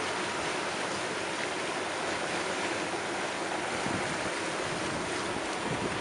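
Steady rush of water churned up in the foaming wake behind a moving boat.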